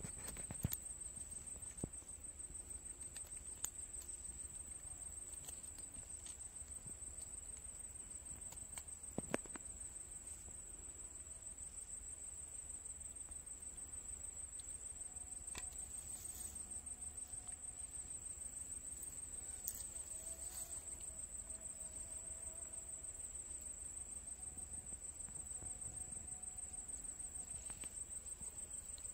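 Steady high-pitched trilling of crickets, unbroken throughout, with a few sharp handling clicks, the loudest about nine seconds in.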